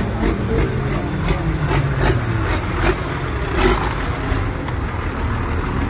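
Large off-road truck engine running low and steady. Over it come sharp knocks, about two to three a second.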